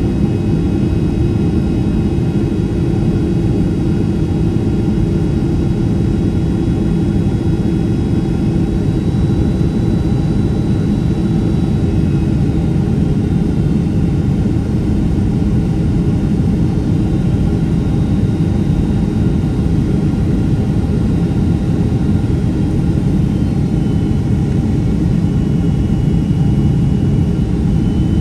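Steady roar of a Boeing 767-300ER's jet engines and airflow heard inside the cabin during descent on approach to landing, with faint steady whining tones over the roar.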